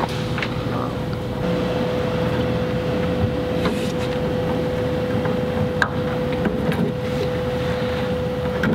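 A steady mechanical hum with a constant mid-pitched tone running under it, and a few faint light taps and clicks.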